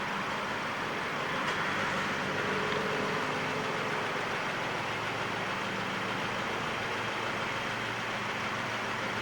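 Steady noise of road traffic, with no rise or fall in level.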